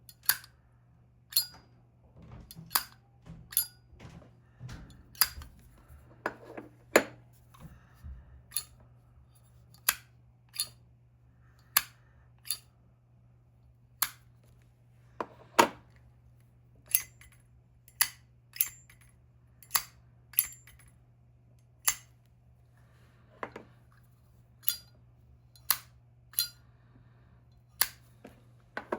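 Zippo lighters with cases of different metals (sterling silver, copper, brass, armor brass, chrome) flipped open and snapped shut one after another: sharp metallic lid clicks, about one a second, sometimes two close together.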